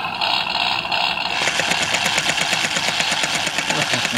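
Electronic 'try me' sound chip of a John Deere Monster Treads toy dump truck, played through its small speaker. A jingle-like effect gives way, about a second and a half in, to a rapidly pulsing engine-rumble effect.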